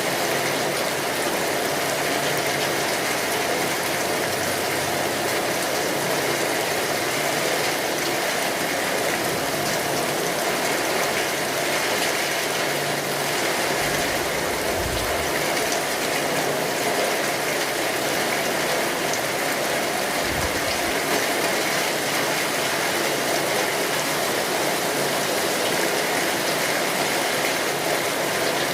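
Steady rain drumming on a tin roof, a dense even patter, mixed with a wood fire crackling. Two short low rumbles come about halfway through and again some six seconds later.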